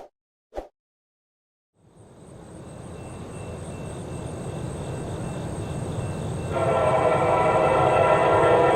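Two short metallic dings, then the steadily building rumble of an approaching CSX freight led by rebuilt SD70MAC diesel locomotives working at full throttle in notch 8. About six and a half seconds in, the locomotive's multi-note air horn starts blowing a loud chord and holds.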